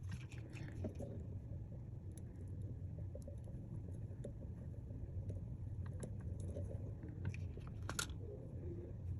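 Faint scattered small clicks and scrapes of hand tools on a phone display chip during cleaning and reballing, over a steady low hum.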